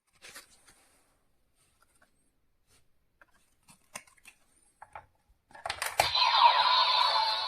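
A few small plastic clicks from a DX Kamen Rider Gotchard toy belt being handled and loaded with cards. About two-thirds of the way in, a click sets off the belt's electronic sound effect: music and a synthetic voice playing through its small speaker.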